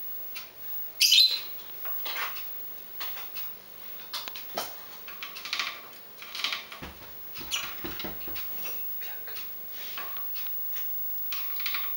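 Lovebirds chirping in their cage: short, sharp, high calls, the loudest about a second in, with light clicks and taps between them.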